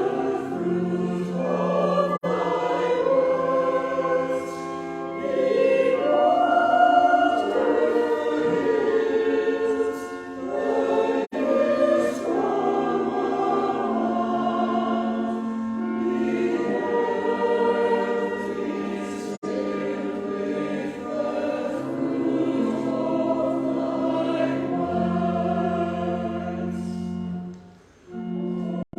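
Church choir singing a harvest anthem, with a brief pause near the end.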